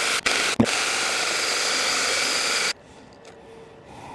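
ImoumLive 6-inch battery mini chainsaw running through wood, with two very brief breaks in the first second. About three seconds in it cuts off suddenly as the battery runs flat.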